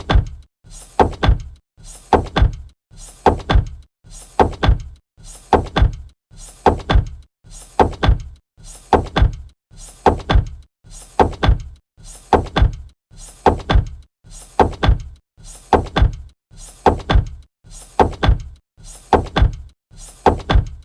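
Robot movement sound effect: a mechanical loop in which a quieter low stretch is followed by a cluster of heavy thunks, repeating evenly about every 1.2 seconds.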